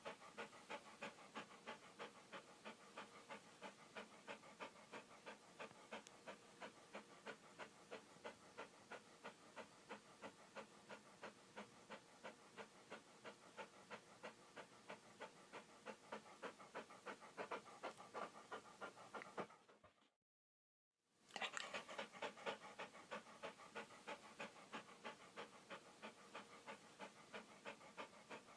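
Dog panting in quick, even breaths, about three a second. The panting fades out about twenty seconds in and starts again about a second later.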